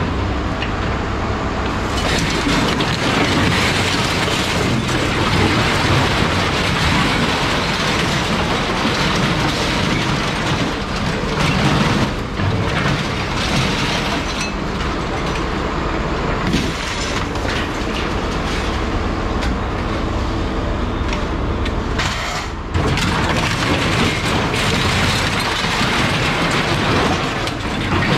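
Scrap metal rattling and clanking without a break, with many sharp knocks mixed in.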